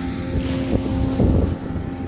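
Mercury 40 outboard with an Outboard Jets water-jet unit running steadily under load, holding an even engine note while thrusting against a mooring line in a bollard-pull test. Wind noise on the microphone.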